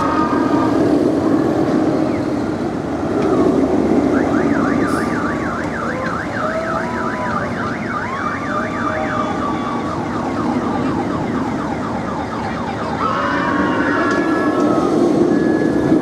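A Premier Rides Sky Rocket II roller coaster train running along its steel track, a steady rumble that swells near the start and again near the end. From about four seconds in until about twelve, a high wailing tone warbles rapidly up and down like a yelp siren.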